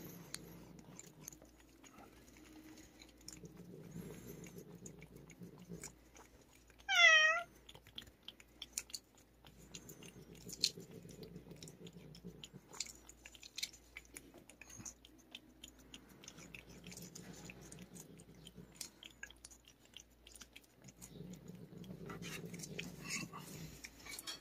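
A cat licking and smacking at a tube of lickable paste treat, a run of small wet tongue clicks. About seven seconds in the cat gives one short cry, briefly louder than anything else.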